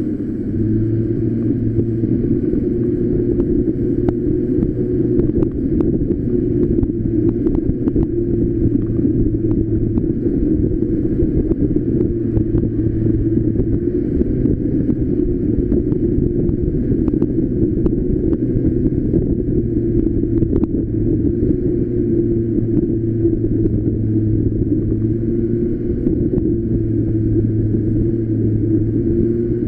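Street go-kart's small engine running steadily under way, with a constant low road rumble.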